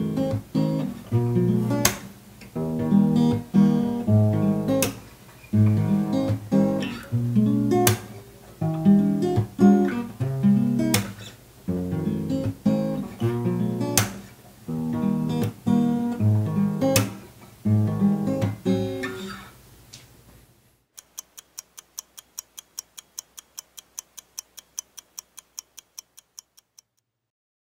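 Acoustic guitar played solo: picked notes over bass notes, with a full chord struck about every second or so. The playing stops about twenty seconds in, and a fast, even run of high ticks follows until just before the end.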